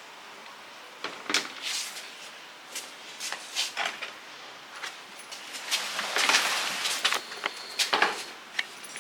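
Hands working on tool parts: a run of irregular clicks, knocks and short scrapes, with a longer scraping sound about six seconds in.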